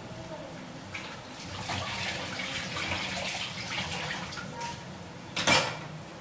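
Water running from a kitchen sink tap as hands are rinsed under it, with one brief, loud burst of noise about five and a half seconds in.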